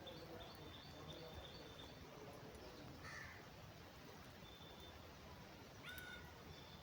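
Faint bird calls: a high chirp repeated about four times a second for the first two seconds, then a harsher call about three seconds in and another near the end.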